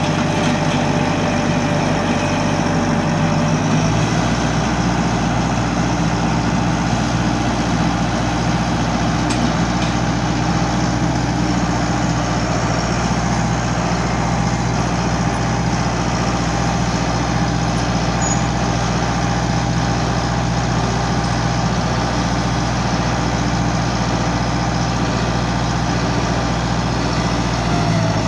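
Tractor engine running steadily under load while it drives a tractor-mounted post-hole digger auger boring into the soil; the engine note shifts lower about four seconds in, then holds steady.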